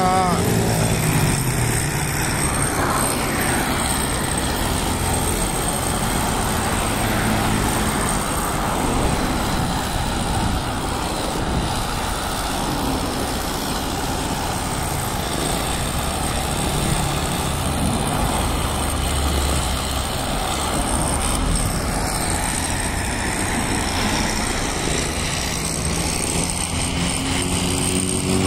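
Steady roadside traffic: cars and motorcycles passing close by on a multi-lane road, their engines and tyres blending into a continuous noise.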